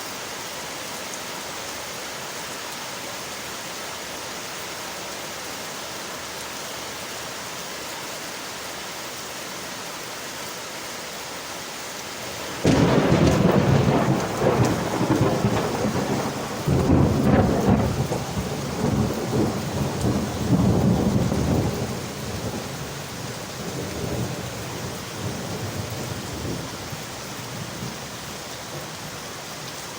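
Steady rain on window glass; about halfway through, a sudden loud thunderclap breaks in and rolls on in several deep rumbles that die away over the last several seconds.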